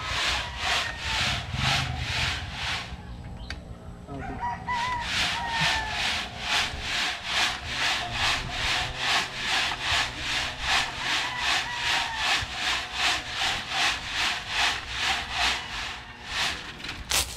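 Sand and gravel being shaken back and forth in a homemade wire-mesh sieve, a steady rhythmic scraping of about two and a half strokes a second that pauses briefly about three seconds in; the sifting separates fine sand from bigger stones. A rooster crows in the background.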